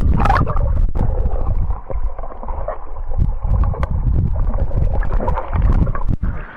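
Muffled, low rumbling water noise picked up by an action camera's microphone plunged underwater, starting suddenly as it goes in, with gurgling and a few sharp clicks.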